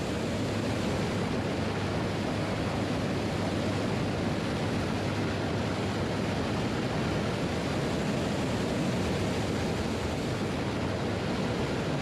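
Steady rushing noise of jet engines and airflow heard inside a B-52 cockpit, with a low hum underneath.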